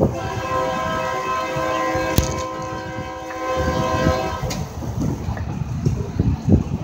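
Approaching train's locomotive air horn blowing one long, steady chord of several notes, which stops about four and a half seconds in. A low, uneven rumble follows.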